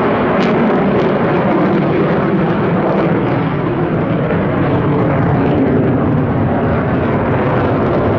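Sukhoi Su-35S fighter jet's twin turbofan engines, heard from the ground as a loud, steady jet noise while the aircraft flies aerobatic manoeuvres.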